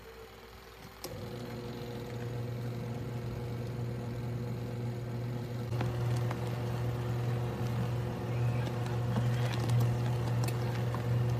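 A washing machine's motor starts about a second in and runs with a steady low hum that grows a little louder, with a few light clicks.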